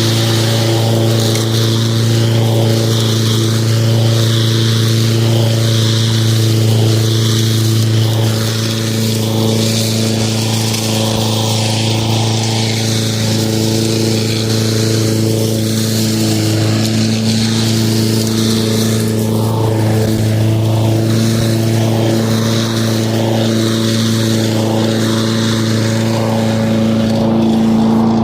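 Lawn mower running at a steady, unchanging pitch, with a hiss that swells and fades about once a second.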